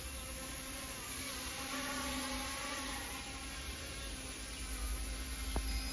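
Kootai F05 RC helicopter in flight, its small electric motor and rotor giving a steady buzzing whine that wavers slightly in pitch, over low wind rumble on the microphone.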